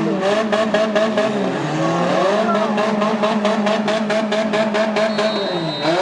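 Several compact demolition-derby car engines revving up and down at once, over an even, rapid pulsing of about six beats a second.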